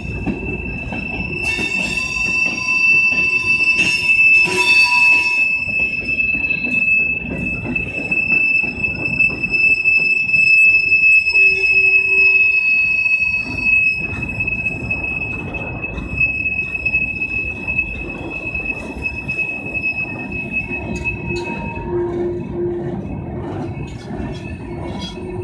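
Freight train of coal hopper cars rolling past: a steady rumble of steel wheels on rail, with a high, thin wheel squeal that holds steady most of the way and fades out near the end. A few sharp clanks come early on.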